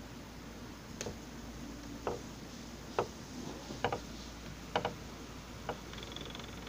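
Slow, creeping footsteps in a dark room, a soft tick with each step about once a second. Near the end a faint high squeak comes in as a doorknob is reached.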